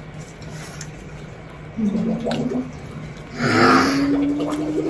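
A person humming a closed-mouth "mmm" of enjoyment while eating: a short hum about two seconds in, then a longer, louder hum with a breathy start that slowly rises in pitch.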